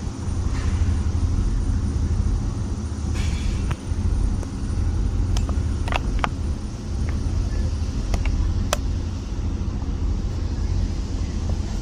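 Steady low rumble of a ship's engine, with a few short sharp clicks about halfway through.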